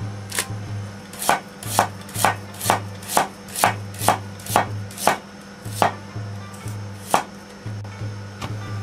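Kitchen knife slicing a peeled daikon radish on a cutting board: a steady run of about fifteen chops, roughly two a second, that stops a little before the end.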